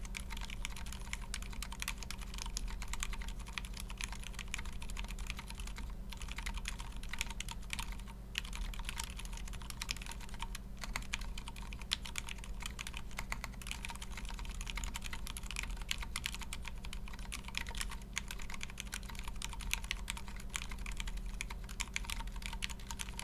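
Continuous typing on a Brutal60 60% mechanical keyboard with Gateron Silent Ink switches, an FR4 plate and OG Cherry doubleshot keycaps: a dense run of very quiet, damped keystrokes with a couple of brief pauses, over a steady low electrical hum.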